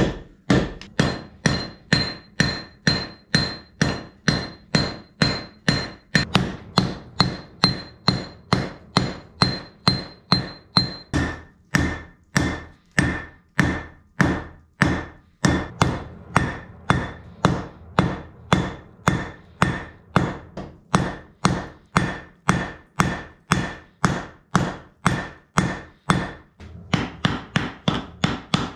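Hand hammer striking red-hot, low-carbon bloomery iron on a steel anvil in steady blows about two a second, each with a short metallic ring from the anvil. There is a brief pause near the end.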